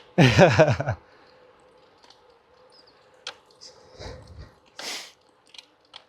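A brief wordless vocal exclamation from the cyclist in the first second, then faint scattered clicks, a low thump and a short hiss.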